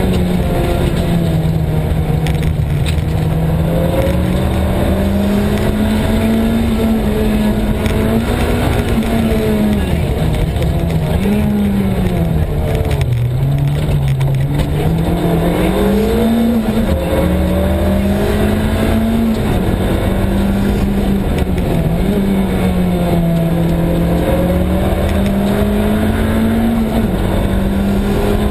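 Rally car engine heard from inside the cabin at speed on a special stage. The revs rise and fall with gear changes and braking, dropping to their lowest about halfway through as the car slows, then climbing again.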